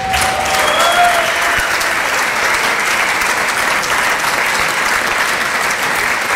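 A large seated audience applauding steadily, with a few brief calls or whoops in the first second, the clapping sounding through a stone-vaulted hall.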